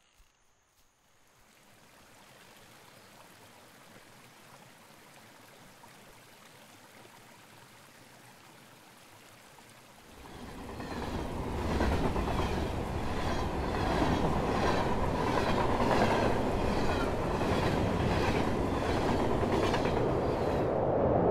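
Faint steady outdoor hiss, then about ten seconds in a train comes in loud: a steady rumble with the rhythmic clickety-clack of wheels over rail joints, about one and a half clacks a second.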